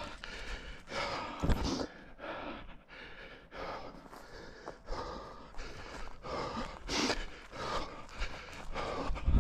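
A runner breathing in and out, about one breath a second, with running footsteps.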